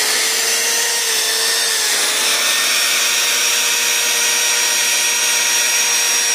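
Brushed electric motor running at speed with a steady, loud whine, with a slight dip in pitch about two seconds in. This is its test run after the oxidised commutator was sanded and the gaps between its segments were cleaned, a fix for heavy brush sparking and a strange noise.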